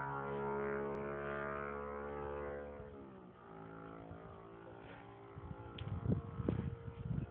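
Honda CG 150's single-cylinder engine running through an aftermarket 'roncar' exhaust, held at raised revs that drop back to a lower idle about three seconds in. Irregular knocks come in near the end.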